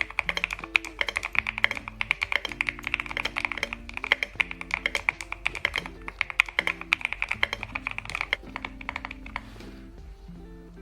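Fast typing on a Tester68 full-foam mechanical keyboard with Leobog Graywood V4 linear switches, relubed with 205g0, and SDA-profile PBT keycaps: a quick, steady stream of keystrokes that stops shortly before the end. Background music plays underneath.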